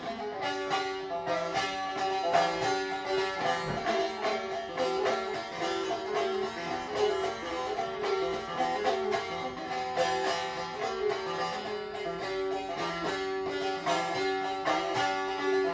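Instrumental passage on a plucked string instrument: quick, evenly picked notes over steady ringing drone tones, with no singing.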